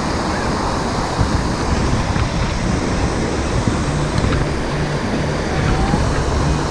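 Wind buffeting a GoPro's microphone: a steady rushing noise with a fluttering low rumble.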